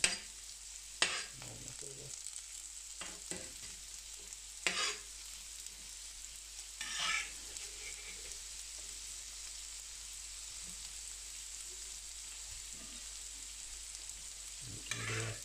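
Bacon sizzling steadily in its fat on a hot carbon steel griddle, with a few sharper crackles now and then.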